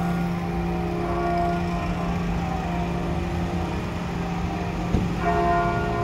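Church bell tuned to f' tolling: its deep hum rings on steadily, and a fresh clapper strike about five seconds in brings back the brighter overtones, over a low rumble.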